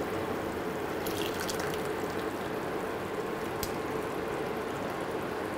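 Mashed tur dal being poured from a steel pot into a pan of simmering masala: a soft, wet pouring over a steady low hiss and hum, with a couple of faint clicks.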